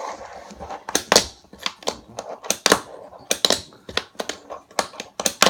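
Wooden fingerboard deck clacking and tapping in the hands, about a dozen sharp, irregular clicks, as its tail is snapped to test its pop.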